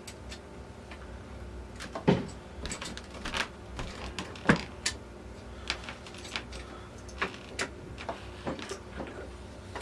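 Scattered clicks and knocks from a T96 transmission's shift rails and overdrive linkage being worked by hand, the two loudest knocks about two and four and a half seconds in.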